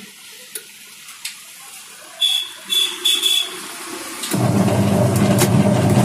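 A few short, high-pitched tones, then about four seconds in the semi-automatic washing machine's wash motor starts suddenly and drives the pulsator through the newly fitted gearbox with a steady hum. The machine is turning properly again now that the gearbox has been replaced.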